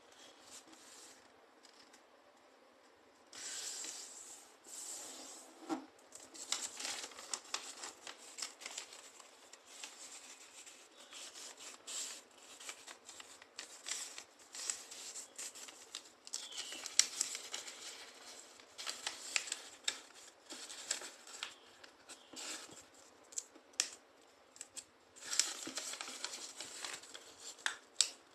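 A sheet of paper being folded and creased by hand: irregular crisp rustles and sharp crinkles as the folds are pressed and smoothed flat with the fingers. It starts about three seconds in.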